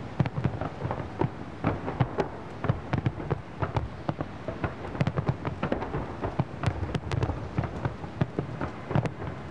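Large fireworks display: many aerial shells bursting in quick succession, a dense run of booms and crackles, several a second, over a continuous low rolling noise.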